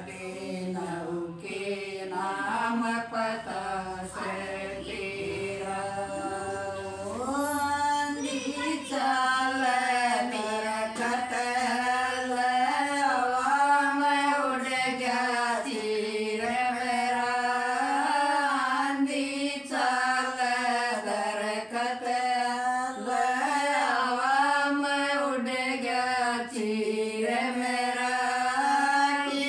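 Women singing a folk song with no instruments, in long held notes that glide up and down; the singing is quieter at first and grows fuller from about seven seconds in.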